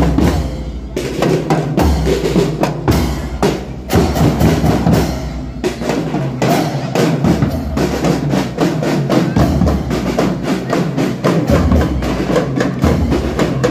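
Children's marching drum band playing: a rapid, dense beat of sticks on snare and tenor drums, with deep bass-drum strokes underneath.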